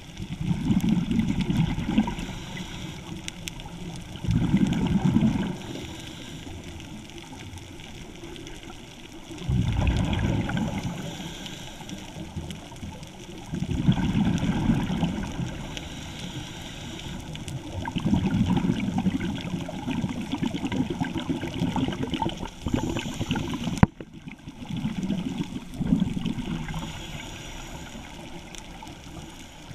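Scuba diver's regulator exhaust: exhaled bubbles rush out in bursts of a second or two, about every four to five seconds, with quieter breathing between them. A single sharp click comes about three-quarters of the way through.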